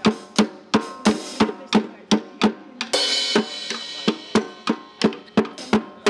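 Drum kit played in a steady beat of about three strokes a second, with a Paiste cymbal crash about three seconds in that rings on for about a second.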